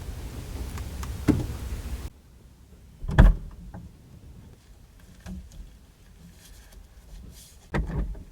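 A steady rushing noise that cuts off abruptly about two seconds in, then two heavy thumps of a truck door shutting, the louder one about three seconds in and the other near the end.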